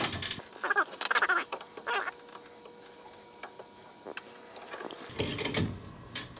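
Metal clicks and scrapes from a C-clamp ball joint press being turned by hand with a 7/8 socket, pressing a new ball joint into a UTV's suspension control arm. The clicks come thickest in the first two seconds, then sparser.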